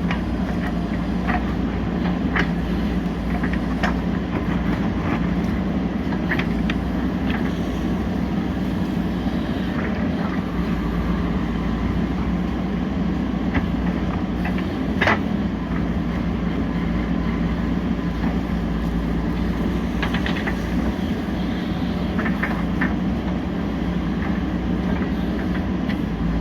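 JCB 3DX backhoe loader's diesel engine running steadily, with scattered sharp knocks and clanks; the sharpest comes about fifteen seconds in.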